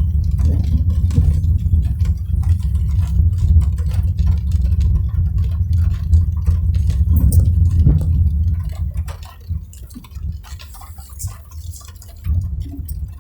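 A car driving in the rain: a steady low road and engine rumble with many small taps of raindrops on the body. The rumble eases off about two-thirds of the way through and picks up again near the end.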